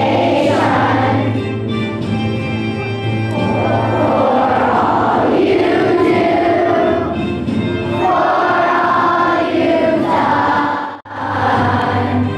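A large group of children singing together in chorus over a musical accompaniment, with long held notes. The sound drops out suddenly for a moment about eleven seconds in, then the singing resumes.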